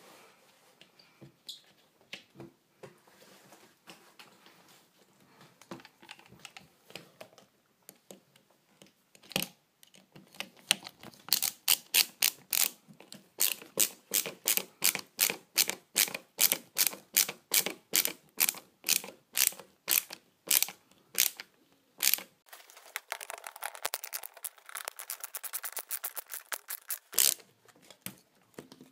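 Cordless drill/driver driving a screw into a metal curtain rod bracket. After faint handling, it gives a long run of sharp, evenly spaced clicks at about three a second, then a faster, denser clicking near the end.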